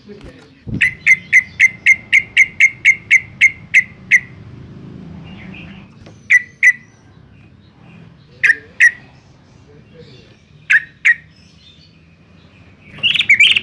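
Yellow-vented bulbul calling: a fast run of about a dozen sharp, evenly spaced notes at about four a second, then paired calls every two seconds or so, and a louder jumble of calls near the end.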